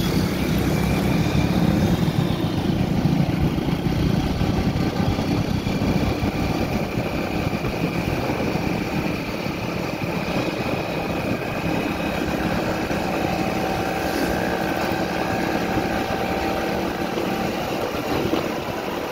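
A two-wheeler's engine running steadily at road speed, heard from the seat of the moving bike together with rushing road and wind noise.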